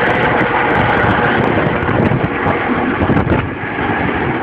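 A helicopter's turbine engines and rotor running at full power as it lifts off and climbs away, with rotor downwash buffeting the microphone.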